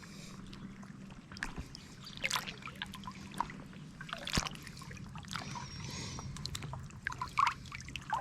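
River water splashing and sloshing, with irregular small splashes every second or so over a light trickle.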